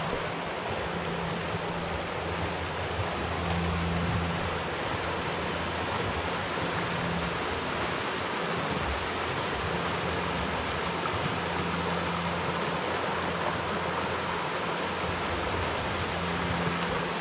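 Oak Creek's water rushing steadily over rocks, an even hiss of running water.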